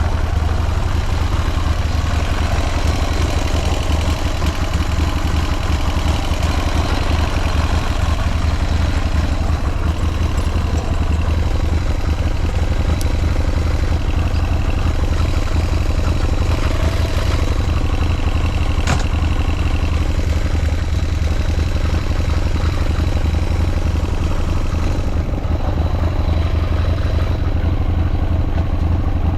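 Buell M2 Cyclone's 1203 cc air-cooled V-twin with Thunderstorm heads idling steadily, with no unusual noises by the seller's account.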